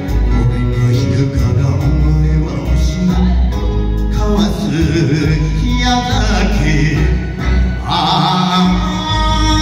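Male voices singing a duet over backing music with a steady bass line; a strong singing voice comes in about eight seconds in.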